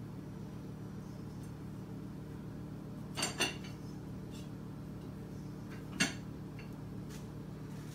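A cat nudging the lid on a raised dog bowl, the lid knocking and clinking against the bowl: two clinks close together about three seconds in, a sharper one about six seconds in, and a few lighter taps. A steady low hum runs underneath.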